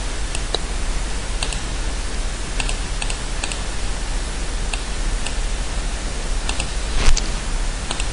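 Steady microphone hiss and a low mains hum, with about ten faint computer-mouse clicks scattered through.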